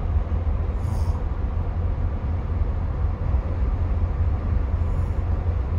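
Steady low rumble of road and engine noise inside the cabin of a 2022 Ford F-150 PowerBoost hybrid pickup cruising at highway speed, about 110 km/h, with the engine turning about 1,700 rpm.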